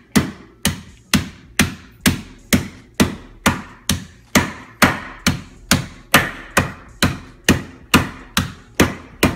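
Meat mallet tapping conch through a plastic bag on a cutting board: an even run of light strikes, about two a second. The conch is being flattened and tenderized for cracked conch.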